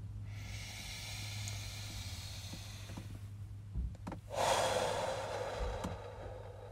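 A person's audible deep breathing: a long hissing inhale lasting about three seconds, then, after a short pause, a louder breath out lasting about two seconds. A low steady hum sounds underneath.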